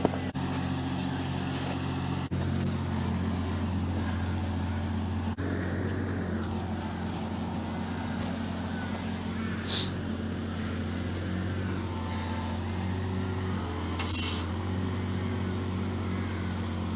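Digger's engine running steadily, a low even hum, with two short hisses about two-thirds and four-fifths of the way through.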